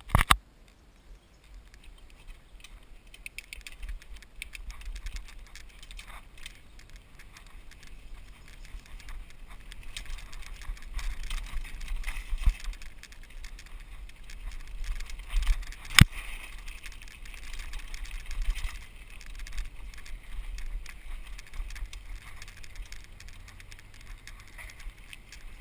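Mountain bike rolling over a rough, stony dirt road: tyres crunching on gravel, with the bike and its camera mount rattling and clicking over a low rumble. A sharp knock comes about sixteen seconds in.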